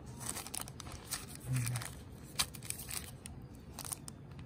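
Small clear plastic parts bag crinkling and crackling in the hand as it is turned over, with scattered light clicks.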